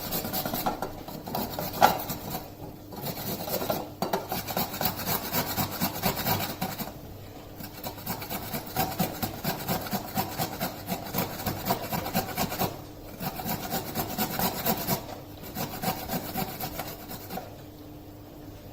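Fresh ginger root being grated by hand on a grater: quick, repeated rasping strokes in runs of a few seconds, with short pauses between runs, stopping near the end.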